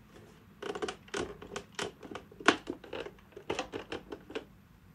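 Hands working at the plastic top cover and casing of a Kindermann AV100 slide projector to work it loose. A run of irregular clicks, taps and scrapes starts about half a second in, with the sharpest click about halfway.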